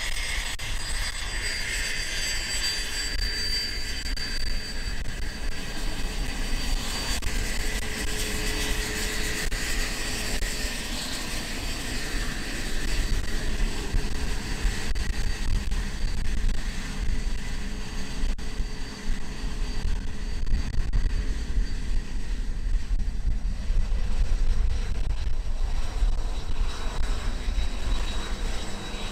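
Cessna Citation 501's Pratt & Whitney Canada JT15D turbofans running with a steady high turbine whine that fades after the first ten seconds or so. Wind rumbles on the microphone throughout, growing stronger toward the end.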